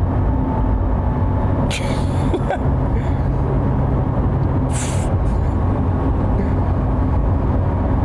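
Cabin noise of the Rimac Nevera electric hypercar at speed: a steady, loud tyre and wind rumble with no engine note. Two short hissing bursts come about two and five seconds in.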